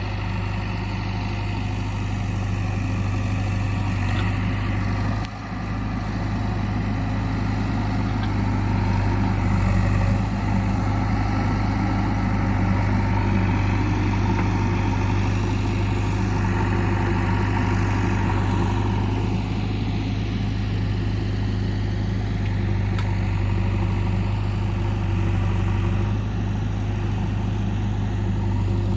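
Heavy diesel machine engine running steadily at a constant speed, with a brief dip in loudness about five seconds in.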